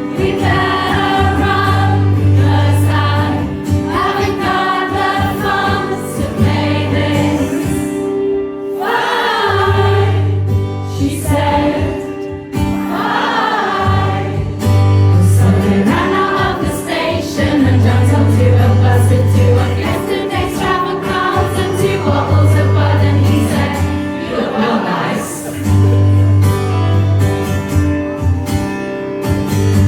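Live band music with many voices singing together over repeated low bass notes, recorded loud from within the audience.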